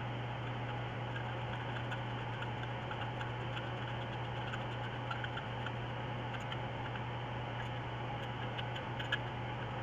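Light, scattered metal clicks and taps from a small screwdriver working on a motorcycle muffler part held in the hand, a few louder ones near the end, over a steady low hum.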